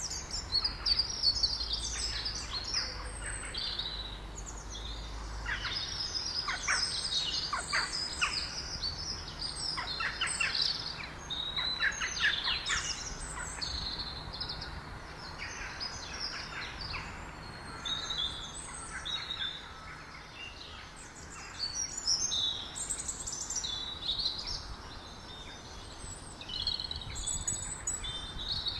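Songbirds singing and chirping in a dense, overlapping chorus of varied high chirps and trills.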